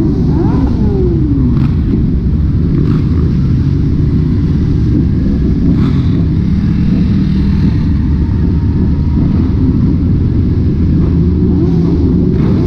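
Many motorcycle engines running together in a large group ride, loud and steady, with several engines revving up and down near the start and again near the end.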